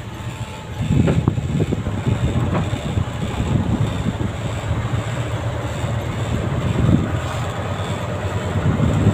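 Mitsubishi Fuso tractor head's 10DC11 V10 diesel engine pulling in fourth gear low range, heard from inside the cab. It gets louder about a second in and then runs steadily.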